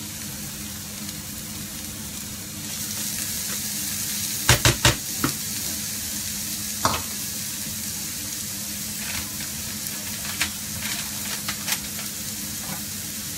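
Chopped onion sizzling in hot olive oil in a non-stick frying pan, stirred with a silicone spatula at first; the sizzle gets louder about three seconds in. A quick run of sharp knocks comes about four and a half seconds in, and a single one a couple of seconds later.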